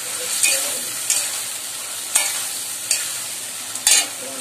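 Potatoes, onions and a ginger-garlic-tomato-chilli paste sizzling in hot oil in an aluminium kadai while a metal spatula stirs them. The spatula scrapes and clinks against the pan about once a second, five times, loudest near the end.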